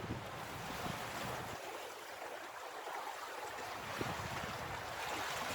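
Sea water rushing and washing around shore rocks, a steady hiss, with wind buffeting the microphone in the first second or so and again near the end.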